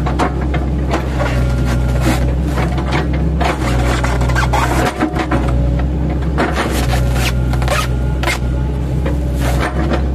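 8-ton class excavator's diesel engine running steadily while its chipping-blade bucket chops oil palm trunks, with repeated irregular cracking and crunching of the wood.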